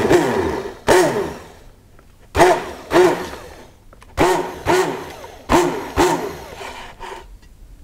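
Immersion hand blender run in about eight short pulses, its motor whine rising and falling with each one as it purées cooked strawberries in orange juice into a smooth soup.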